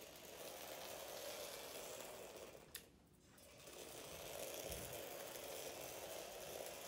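Faint whir of a micro RC car's tiny electric motor and gears driving the 1:64 scale 3D-printed Cybertruck. A single click comes a little under three seconds in, the whir drops away briefly, then builds up again.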